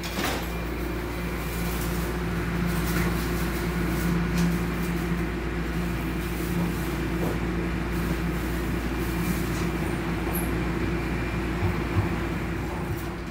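TTC Line 1 subway train running at the station with a steady hum, a knock just after the start as the doors close.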